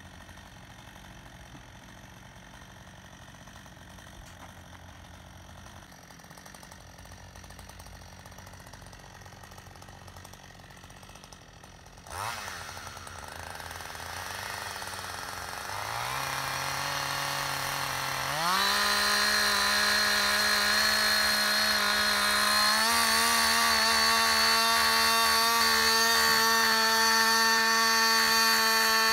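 Gas chainsaw idling faintly, then about twelve seconds in it is throttled up in steps to a steady high-pitched full-throttle run as it bores into the trunk of a dead tree: the plunge cut that sets the felling hinge.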